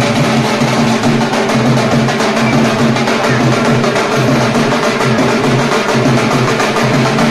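Two dhol drums played in a fast, steady rhythm.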